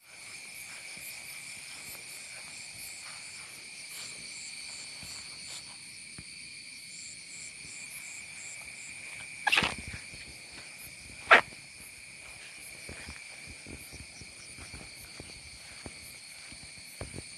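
Steady high-pitched chorus of insects, such as crickets, with a faster pulsing chirp over it for a few seconds. Two short, sharp loud sounds break in about ten and eleven seconds in, the second the louder.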